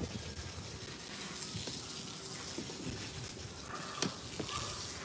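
Faint steady hiss with a few light clicks, a sharper one about four seconds in.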